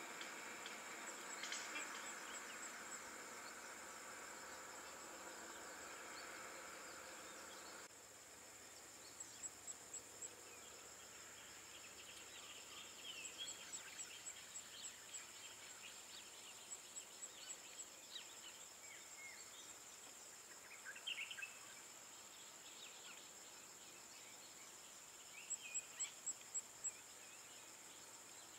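Faint outdoor ambience: a steady high insect drone with scattered bird chirps, and twice a short run of quick, evenly spaced ticks. A low steady hum under it cuts off abruptly about eight seconds in.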